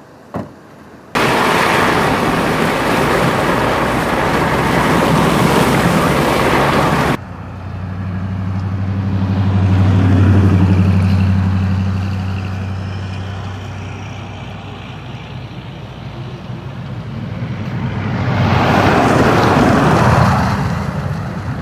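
Vehicles on a snow-covered interstate. A loud rushing noise cuts in about a second in and cuts off abruptly after about six seconds. Then a vehicle's low engine hum swells and fades around the middle, and near the end a tractor-trailer passes close with a rising and falling rush of tyres on the snowy road.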